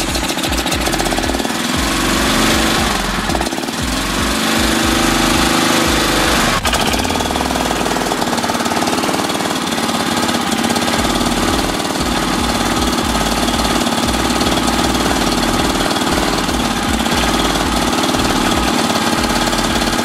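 Kawasaki Mule utility vehicle's engine running at idle with a rapid, even pulsing beat, just started on a freshly cleaned carburetor with a new fuel filter, while its idle screw is being adjusted.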